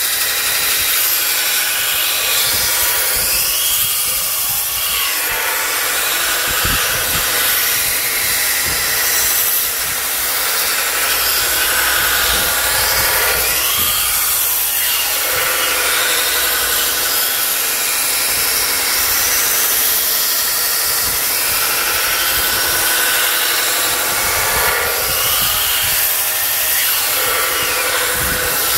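Belt grinder running with a steel knife blade pressed against the abrasive belt, grinding steadily and throwing sparks; the grinding tone swells and falls in pitch three times as the blade is worked.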